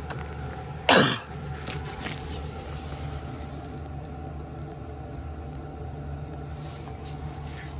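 A single short, loud cough about a second in, over the steady low hum of a running combi boiler.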